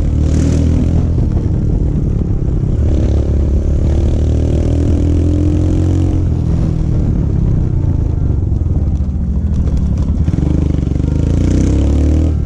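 Royal Enfield Himalayan's single-cylinder engine running through an aftermarket Akrapovic exhaust while riding, its note rising and falling a few times with the throttle.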